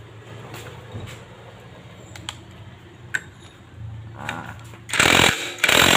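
Cordless impact driver with a socket running down the clutch hub nut of a motorcycle, in two short loud bursts near the end. Before that, light clinks of metal tools.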